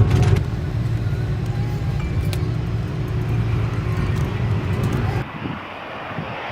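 Airliner cabin noise during takeoff: the jet engines give a steady low rumble with a faint hum over it. About five seconds in it cuts off abruptly to a quieter cabin hiss.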